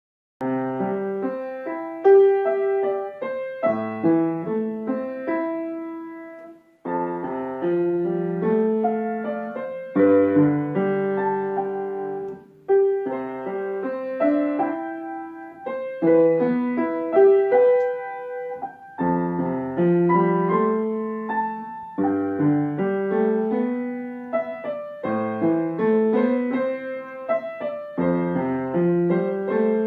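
Solo piano playing a piece in phrases of chords and melody. It starts about half a second in, with two short breaks between phrases.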